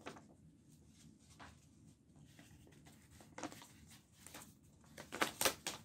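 Paper rustling as a zigzag-cut strip of green paper is handled and wrapped around a cup: faint scattered rustles and crinkles, with a few louder rustles a little after five seconds in.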